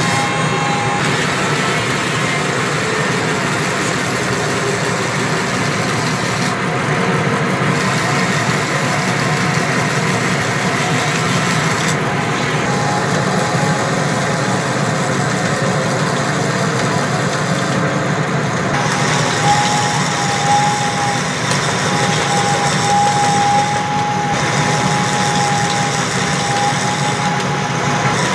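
Simple homemade lathe running steadily as it turns a coconut-wood (glugu) pole, a constant machine noise; a thin whistling tone comes and goes in the second half.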